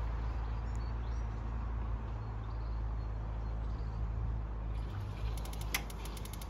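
Steady low outdoor rumble with faint bird chirps. Near the end a rapid, even ticking starts, about eight ticks a second, with a single knock among it.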